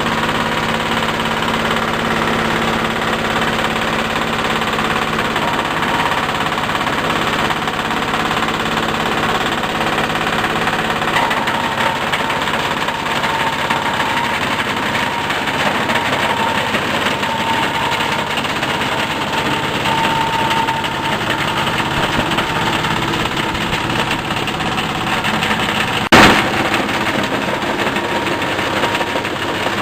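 Fabric and foam shredding machine running steadily with a dense mechanical noise and a steady hum, with one sharp crack near the end.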